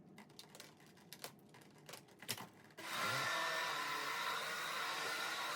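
Plastic clicks and knocks of parts being handled, then about three seconds in a vacuum cleaner motor switches on, spins up and runs with a steady whirring hiss.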